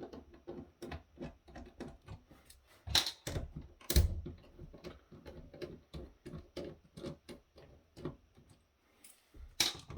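Many quick, irregular small clicks and taps of tools and fingers working on the plastic and metal parts of a handheld electronic device being taken apart, with sharper knocks about three and four seconds in and one more near the end.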